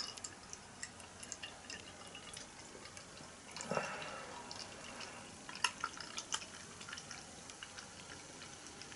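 Bottled English bitter being poured into a glass: faint liquid drips and a short trickle, with a few small clicks.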